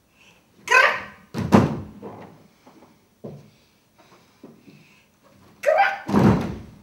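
Two heavy thuds of a barefoot performer landing frog-like leaps on a wooden stage floor, about five seconds apart. Each thud comes right after a short sharp sound, and a few lighter knocks of hands and feet on the boards fall between them.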